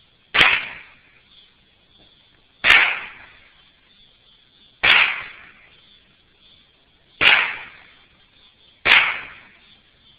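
Mossberg 715T semi-automatic .22 LR rifle fired five times at a slow, steady pace, one shot about every two seconds, each crack followed by a short echo.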